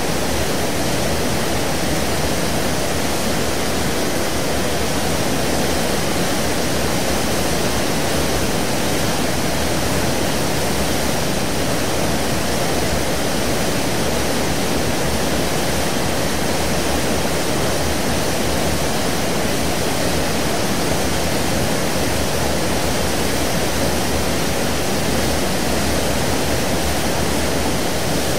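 Seawater wash churning at the stern of a 1980-built, 17,400-ton car ferry under way. It makes a steady, even rushing with a deep rumble beneath it and no breaks.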